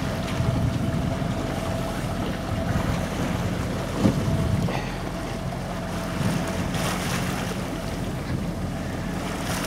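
Wind rushing over the microphone and sea water washing past the hull of a small sailing yacht under sail, with a steady low hum underneath and a single knock about four seconds in.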